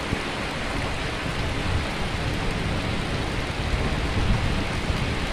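Raw water pouring down the stepped cascade aerator at the inlet of a water filtration plant: a steady rushing, splashing noise.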